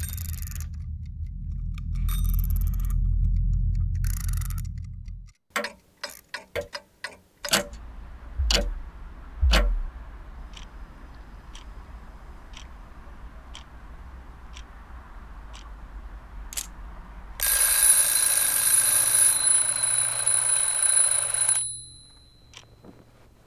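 A low rumble for the first five seconds, then a quick run of clicks, then a clock ticking about once a second. It ends with an alarm clock ringing loudly for about four seconds before cutting off.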